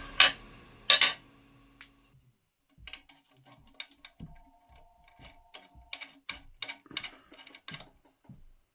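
A run of light, irregular clicks and small metallic taps, like metal tools and parts being handled on a drill press table, with two sharper knocks in the first second.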